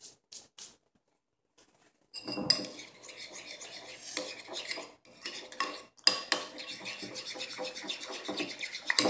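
Metal spoon stirring and scraping in a ceramic bowl, a steady run of clinks and scrapes that starts about two seconds in and pauses briefly twice. A few soft hand rubs come just before.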